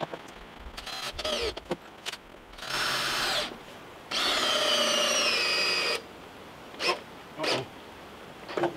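Cordless drill driving screws into wood. It makes several short bursts and two longer runs, the second lasting about two seconds with its motor whine sagging in pitch as the screw bites. The drill's battery is running low.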